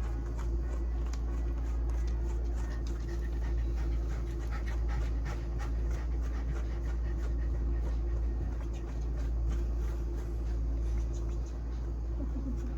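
Hair dryer blowing steadily on a dog's coat, with the dog panting.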